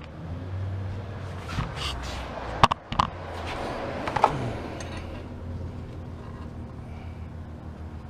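Work and handling noises: a few sharp knocks and clicks with some rustling or scraping over a steady low hum.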